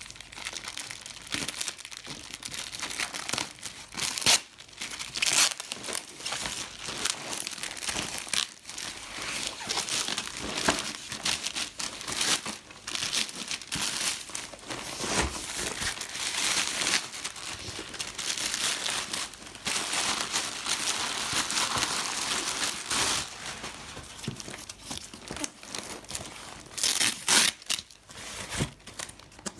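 Shipping packaging being unwrapped by hand: continuous crinkling, crackling and tearing as the parcel wrapping is pulled open, with irregular louder rips and snaps.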